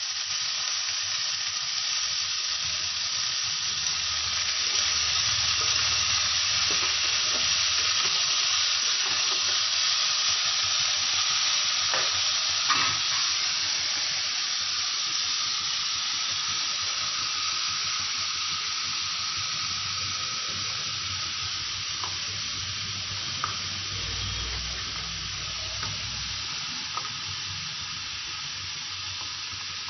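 Freshly washed diced vegetables frying in hot oil in a black iron kadai: a steady sizzling hiss that is loudest in the first half and slowly dies down as the water cooks off. A few light clicks of a metal spatula against the pan come through in the middle and near the end.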